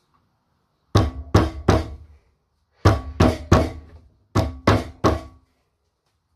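Hollow ball-mill jar knocked hard while held upside down, to shake out aluminium powder: three sets of about three sharp knocks, each ringing briefly.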